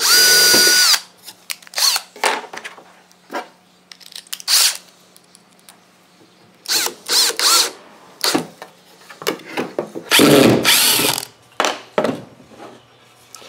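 Cordless drill running at full speed for about a second as it bores a hole through MDF board, with a steady whine. Then come scattered clicks and knocks of handling, short bursts of the drill running, and a louder rough burst about ten seconds in.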